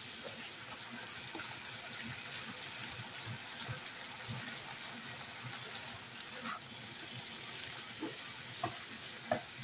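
Pork liver, onion and basil sizzling in a stone-coated pan as they are stir-fried: a steady hiss with a few light knocks of the spatula against the pan.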